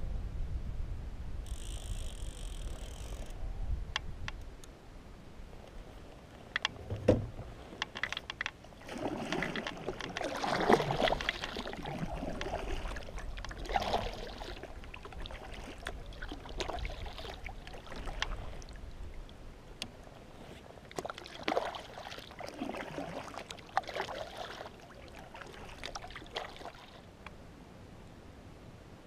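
Kayak paddle strokes splashing in lake water, one blade dipping after another about every one to two seconds, with wind rumbling on the microphone during the first few seconds.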